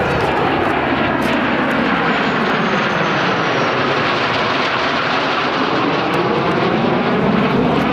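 Aircraft engines as a plane flies past in a low display pass, a loud steady noise whose pitch sweeps downward as it goes by.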